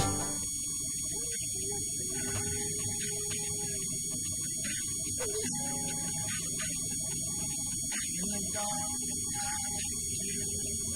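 Steady electrical hum with a high whine, and faint short tones coming and going.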